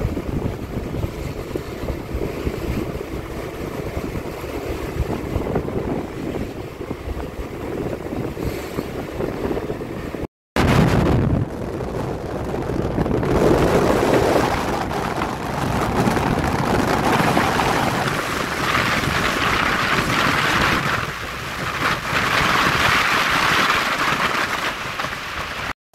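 Wind buffeting the microphone of a moving motor scooter, a steady rushing rumble mixed with road noise. It breaks off briefly about ten seconds in, then comes back louder and hissier.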